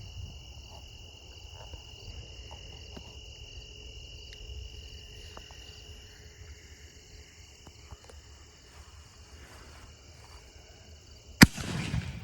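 Crickets and other night insects chirring steadily, then about eleven seconds in a single sharp bang from a consumer firework (a brocade crown to red and green), followed by a short noisy tail.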